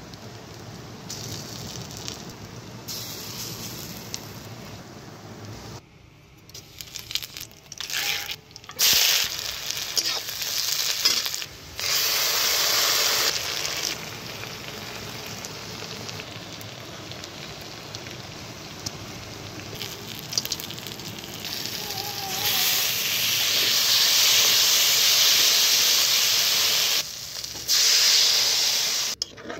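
Spiced onion masala frying in hot oil in a kadai, sizzling and hissing. The sizzle changes level abruptly several times and is loudest in a stretch near the middle and again for most of the last third.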